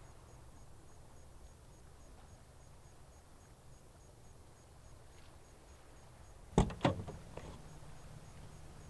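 Car door of a Volkswagen Passat GL estate: two sharp knocks in quick succession about six and a half seconds in, followed by a few fainter clicks, over a low steady hum.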